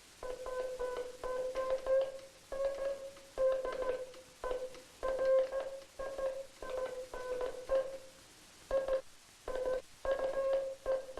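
Morse code tone keyed on a J38 straight hand key, sent badly: a steady mid-pitched tone switched on and off in uneven lengths with irregular gaps. The dahs are cut short, dits are skipped and the spacing is erratic, the sign of a key with its contact gap too wide or its spring too tight.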